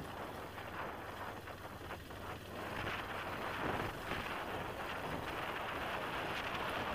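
Wind rushing over the microphone of a moving enduro motorcycle, with the bike's engine running underneath; the rush grows louder about two and a half seconds in.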